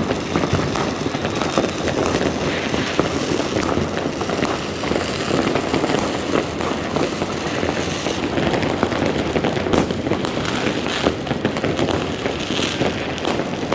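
Many fireworks and firecrackers going off at once: a dense, continuous crackling barrage of pops and bangs at a steady level, with no single blast standing out.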